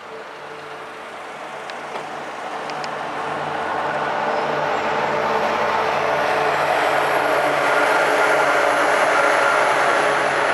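Freight train led by a diesel locomotive approaching, its engine drone growing steadily louder as it comes onto the bridge, with a faint high whine above it.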